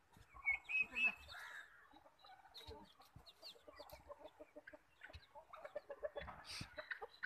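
Nepali native hens clucking as they forage. The loudest calls come about half a second to a second in, followed by quick runs of short low clucks, about five a second.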